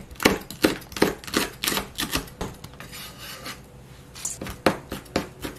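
Kitchen knife chopping hot chili peppers on a plastic cutting board: quick, even strokes at about five a second. They stop about halfway through, and softer scraping follows, then a single knock near the end.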